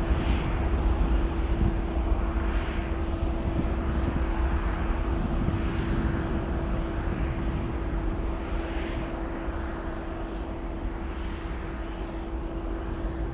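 Airbus A320 jet engines at takeoff power: a steady roar with a held hum, slowly fading as the airliner moves away.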